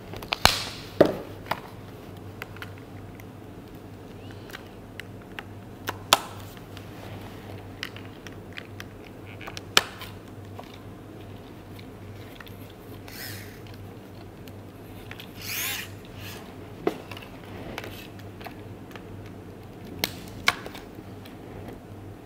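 Hard plastic ClicBot robot modules being handled and snapped together, with sharp clicks and knocks every few seconds, several close together at the start, and two short rustles in the middle.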